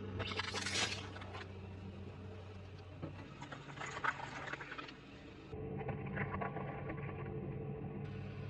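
Close-up eating sounds: chewing and crunching of food in short crackly bursts over a steady low hum, broken by abrupt cuts.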